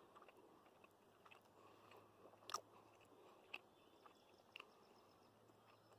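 Near silence with a few faint clicks of a mouth chewing a greasy pork meat stick, about a second apart.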